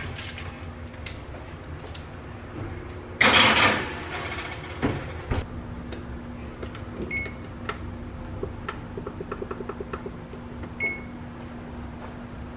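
A metal baking sheet scrapes loudly into an electric oven and the door shuts with a couple of knocks. Then the range's control panel beeps twice, with a quick run of about ten ticks between the beeps as the temperature and timer are set, over a low steady hum.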